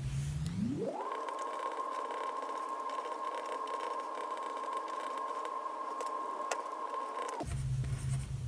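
Mechanical pencil writing on paper: a steady, muffled scratching noise. It cuts in about a second in and stops shortly before the end.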